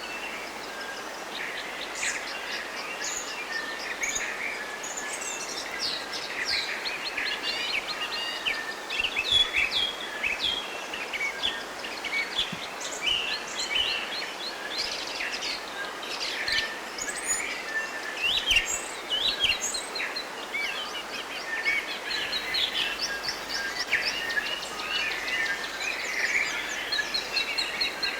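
Chorus of many small songbirds chirping and singing, a dense overlapping run of short high calls and whistles over a steady background hiss.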